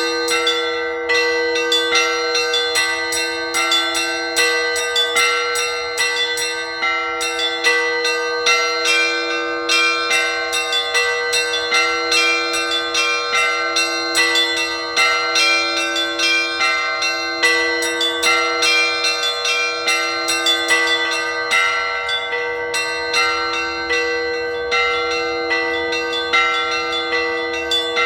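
Orthodox church bells ringing a full peal (zvon). Small high bells are struck in a quick, rhythmic pattern over a deeper bell that is rung about every two seconds.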